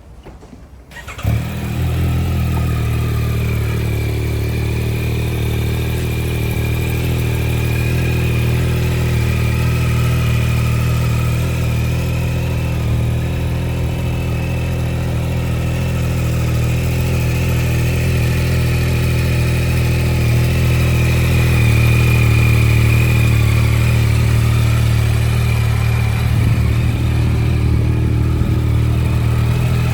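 2024 Yamaha XSR900 GP's 890 cc inline-three engine starting about a second in, then idling steadily.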